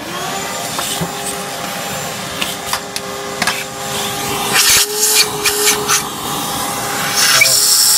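Shop vacuum switched on, its motor spinning up and then running steadily with a high whine and hiss. Short rattling clicks come several times as its nozzle clears drill shavings from a freshly drilled-out bolt hole in an aluminium engine block.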